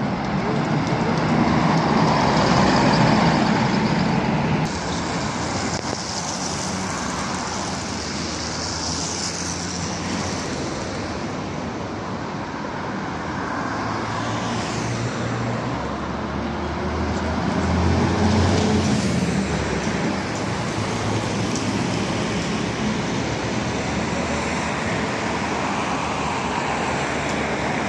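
Steady city street traffic. A tour coach's diesel engine passes close and loud in the first few seconds, and a bus engine swells again around the middle as buses and a trolleybus cross the square.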